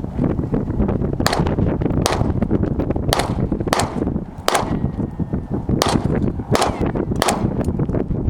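9 mm gunshots fired in a series, about nine shots at uneven intervals of roughly half a second to a second, over a steady low rumble.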